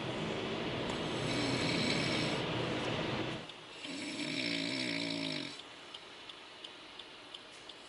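A very drunk man snoring heavily in a car: a long rasping snore for about three seconds, then a shorter, wavering pitched snore, then a quieter pause.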